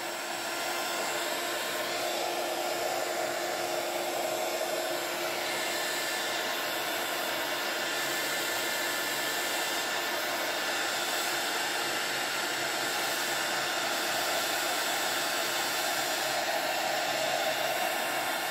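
Handheld craft heat tool (embossing heat gun) blowing hot air steadily over wet watercolour paint to dry it: an even hiss of air with a faint motor hum, a little louder from about half a second in.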